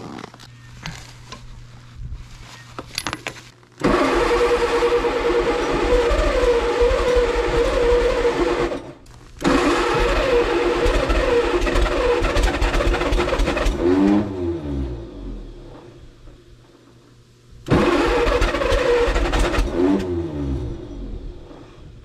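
Electric starter cranking the 1957 Allis-Chalmers IB tractor's engine in three long tries of several seconds each, the engine turning over without starting. After each try the starter winds down with a falling whine.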